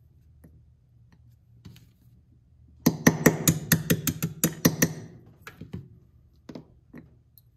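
Small hammer tapping a pin punch, about a dozen quick strikes over two seconds (roughly six a second), driving a pin out of a Sig P365's fire control unit. A few separate light clicks of small metal parts follow.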